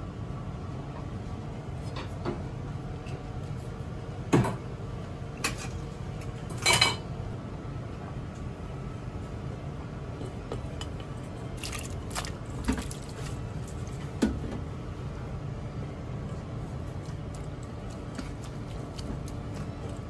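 Stainless steel bowls and a metal container handled on a kitchen counter: a few scattered clinks and knocks, the loudest about seven seconds in, over a steady low hum.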